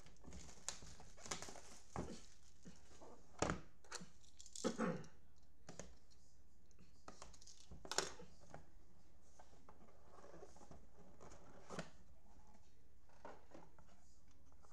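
Plastic shrink-wrap being torn and crinkled off a cardboard trading-card box, with sharp crackles and knocks in the first five seconds and another about eight seconds in, then quieter handling of the box.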